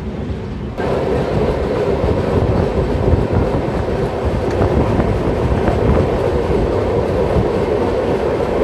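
A suburban local train passing close alongside on the next track, its coaches rushing and rattling by, heard from the open doorway of a moving train. The noise jumps up suddenly about a second in and then stays loud and steady.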